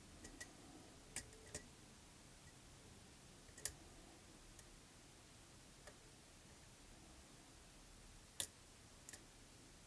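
Sparse, irregular small clicks of a lock pick working the pins of a pin-tumbler lock, about eight in all and the loudest about four and eight seconds in, over near-silent room tone.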